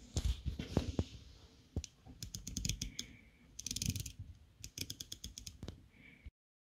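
Handling noise from a Carl Zeiss Jena Tessar 50mm f/2.8 lens being turned in the hands. A few soft knocks come first, then several quick runs of sharp clicks, and the sound cuts off abruptly a little after six seconds.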